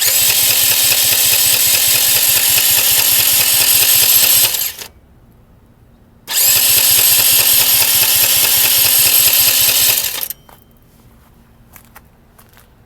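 Honda Elite CH80 scooter's 80cc engine cranked twice on its electric starter, each run a steady whir of about four seconds that stops without the engine catching. The owner reports low compression, with fuel, spark and air good.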